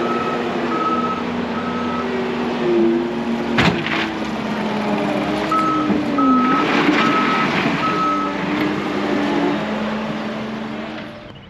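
Compact track loader's diesel engine running under changing load, its pitch rising and falling as the machine works gravel. Its backup alarm beeps at an even pace twice, for about two seconds at the start and for about three seconds past the middle, so the machine is backing up. A sharp clank comes about three and a half seconds in, and the engine fades toward the end.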